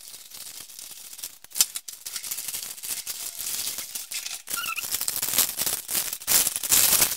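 Plastic packaging crinkling and rustling as a courier bag is opened and the plastic wrap is pulled off a stack of plastic food containers. It is a continuous crackle with a few sharp clicks, and it gets louder in the second half.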